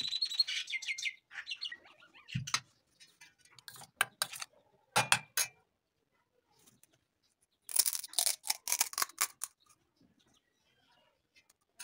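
Kitchen handling sounds: light clinks of a metal spoon against a glass bowl with a short ringing at the start, then scattered taps. About eight seconds in comes a burst of crisp crackling as a hollow fried puri shell is broken open.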